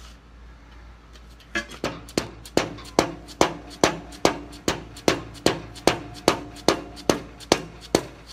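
Mallet blows on the end of a hydraulic lift cylinder, about two and a half sharp knocks a second starting about a second and a half in, each with a short metallic ring. They are driving the rebuilt gland with its new seals into the tight-fitting cylinder barrel.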